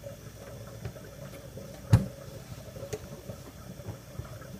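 Thin stream of water poured from a small metal cup, trickling over a watermelon into a stainless steel sink, with a single sharp knock about two seconds in.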